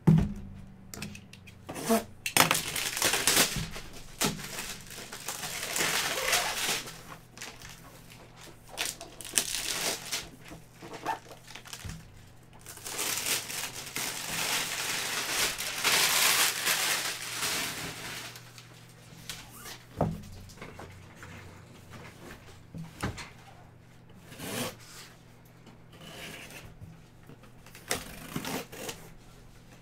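Sealed cardboard box being opened by hand: knocks and scrapes of the box with two long stretches of tearing and rustling as packing tape is cut and pulled, and scattered clicks.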